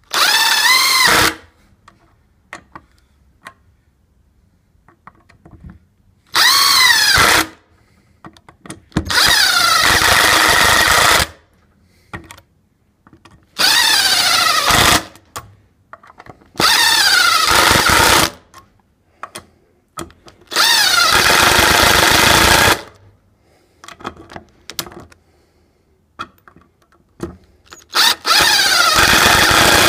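Harbor Freight Drill Master 18-volt cordless impact driver driving screws into a wooden block, in seven separate runs of one to two seconds each, its motor pitch shifting as each screw goes in. Small handling clicks come between the runs.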